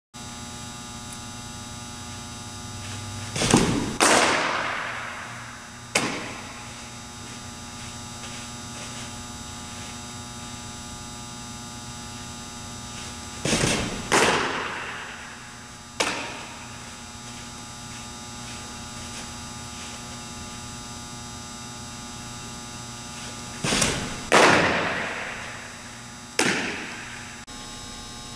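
Fastpitch softball pitches: three times, about ten seconds apart, a sharp double smack as the pitch is thrown and the ball hits its target, echoing through a large hall. Each is followed about two seconds later by a lighter knock. A steady electrical hum runs underneath.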